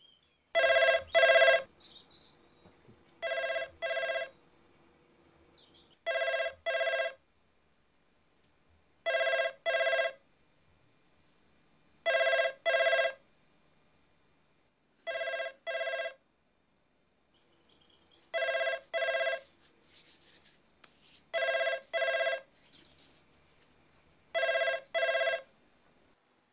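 Telephone ringing in the British double-ring pattern, brr-brr, repeated about every three seconds, nine times in all. The call goes unanswered.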